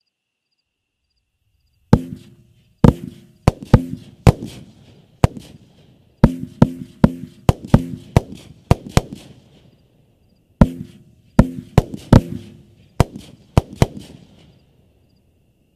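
A 12-shot consumer firework cake, World-Class Fireworks' "It's a Boy", firing a series of sharp bangs in irregular clusters, each trailing off in a short tail. The bangs begin about two seconds in and stop about two seconds before the end.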